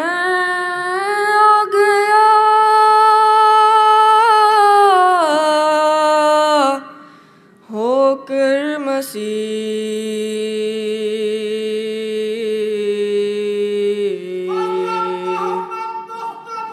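A voice singing an Urdu devotional prayer poem in long, slowly drawn-out held notes, breaking off briefly about seven seconds in and then resuming.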